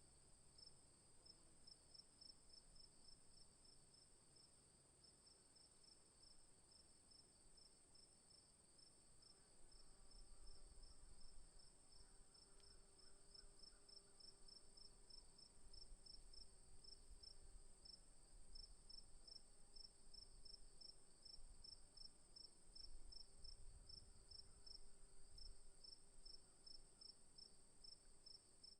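Crickets chirping faintly: a steady high trill with a regular pulsed chirp a few times a second below it. A faint low rumble comes in about ten seconds in.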